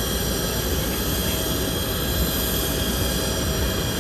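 Steady jet turbine noise on an airport apron: a continuous whine made of several high steady tones over an even low rumble, around a Boeing 737-800 parked for refuelling.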